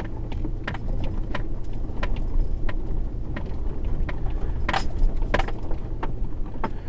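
Truck rolling slowly over a rough grassy track, heard inside the cab: a steady low engine and road rumble with irregular light clicks and rattles in the cab as it bumps along, a few louder ones about five seconds in.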